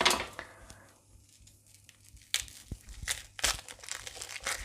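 Dry, papery onion skins and scraps crinkling and rustling as they are gathered up off the counter. A burst of rustling at the start, a short pause, then a run of sharp crinkles from about halfway.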